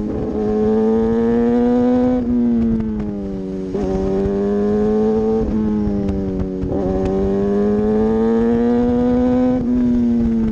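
Motorcycle engine pulling under acceleration, heard from on board the bike. Its pitch climbs slowly and drops back sharply several times as it shifts up through the gears.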